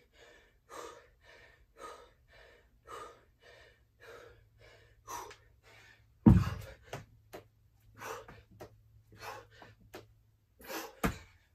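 A man panting hard from exertion, about two heavy breaths a second. About six seconds in, a pair of 25 lb hex dumbbells thuds onto the floor, and a second, smaller thud comes near the end.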